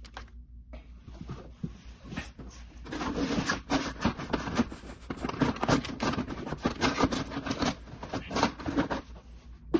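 Rustling and clicking of a coil of clear plastic hose and a plastic catch container being handled under a car. The handling is busiest through the middle of the stretch.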